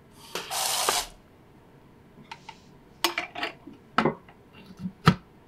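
Handheld bidet sprayer giving a hissing burst of water of about a second as its trigger is squeezed, a leak test of the new hookup. A few seconds later come a series of sharp plastic clicks and knocks as the plastic bidet cradle is fitted onto the side of the toilet tank.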